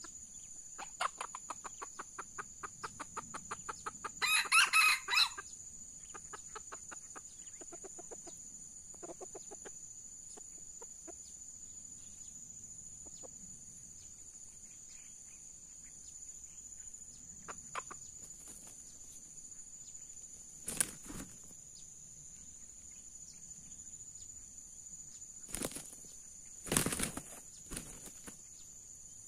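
Red junglefowl roosters: a rapid run of clucks for a few seconds, then a short loud crow about four seconds in. Loud bursts of wing flapping come about twenty seconds in and again near the end as two roosters start fighting, over a steady high-pitched drone.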